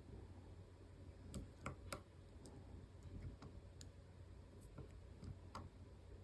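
Faint, irregular small metallic clicks of a lock pick working the spring-loaded sliders inside an EVVA ICS cylinder under tension, about ten in all, the sharpest few between one and two seconds in.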